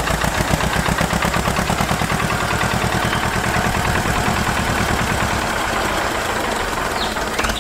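Small engine running steadily with fast, even pulses.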